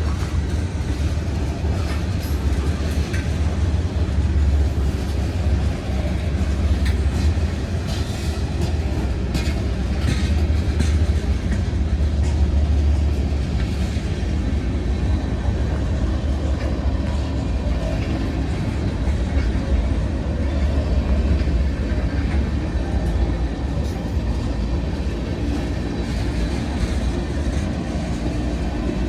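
Slow-moving freight train under power: a steady, deep diesel rumble with wheel clatter and clicks on the rails.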